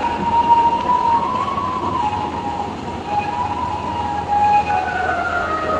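Background music: a slow melody of long held notes that step and glide gently in pitch.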